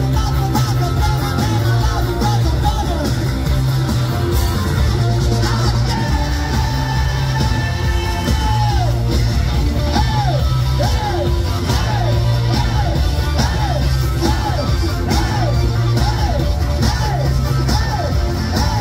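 Garage rock band playing live at full volume, with singing and yells over the band. From about halfway a short rising-and-falling phrase repeats roughly every three-quarters of a second.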